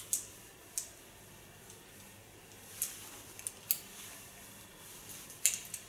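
Hairdresser's scissors snipping hair: separate short, crisp snips, two in the first second, a few more around three to four seconds in, and a quick cluster near the end.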